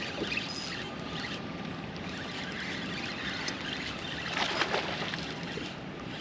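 Water splashing and trickling around a kayak while a hooked pike is played at the side, with a louder burst of splashing about four and a half seconds in.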